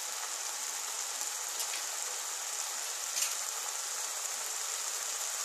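Poppy-seed paste with onion and tomato sizzling steadily in mustard oil in a wok over medium heat, with a couple of faint ticks.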